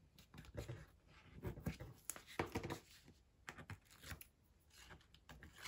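Faint rustling and crackling of double-sided tape being pulled from a roll and pressed along the edge of a sheet of designer paper, with short scratchy rustles of the paper being handled.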